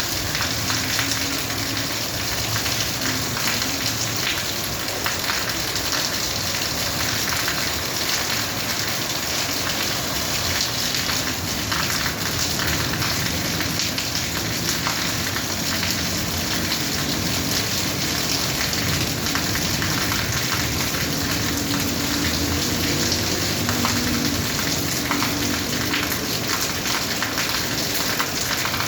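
Steady rain falling in a dense patter of drops, even in level throughout.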